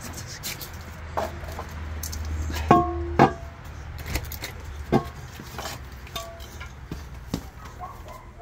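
A car wheel rim being carried and handled: a string of knocks and clanks, a few of them ringing briefly like struck metal, over a low steady hum.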